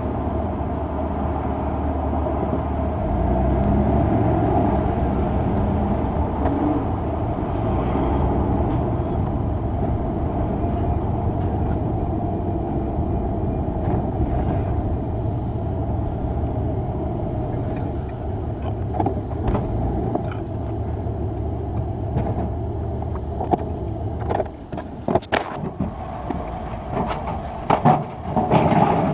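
A vehicle engine running steadily with a low rumble. About 24 seconds in it drops away, and a series of sharp knocks and clanks follows.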